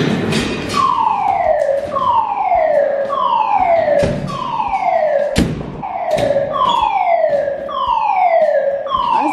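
Building fire alarm sounder: a loud, repeating falling tone, each sweep dropping in pitch over most of a second, about one a second, starting about a second in. A couple of sharp knocks cut through it near the middle.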